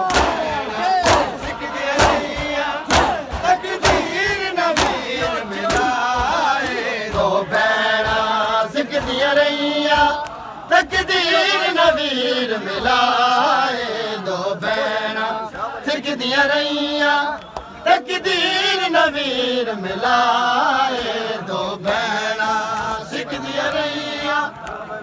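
A crowd of men beating their chests in matam, the hand slaps landing about once a second, while voices chant a Punjabi nauha (mourning lament). After about six seconds the chanted melody takes over and the slaps fade back.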